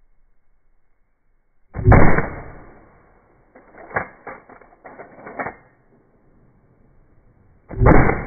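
Two shotgun shots about six seconds apart, each a loud blast that dies away over about a second. Between them comes a quick run of clacks.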